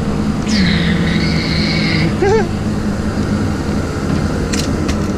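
Tracked excavator (track-hoe) engine running steadily under work. About half a second in, a high whine drops in pitch and holds until about two seconds in. A brief squeak follows, and a sharp knock comes near the end.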